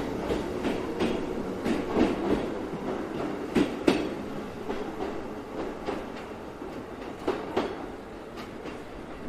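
Train wheels clicking over rail joints, the clicks coming in pairs over a steady running hum, slowly fading away.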